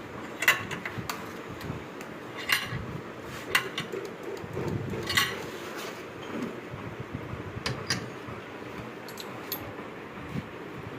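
Metal tools and parts clinking and tapping at uneven intervals, the sharpest about half a second in, over a steady background hum.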